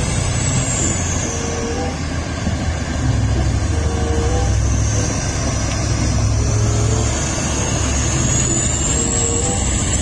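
Komatsu D375A crawler bulldozer's diesel engine running with a steady deep rumble. A thin high whine falls and then rises again over it.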